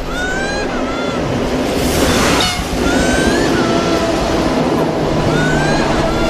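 Children crying in repeated high wailing cries, each one rising and then falling, about every two and a half seconds, over a steady rushing noise.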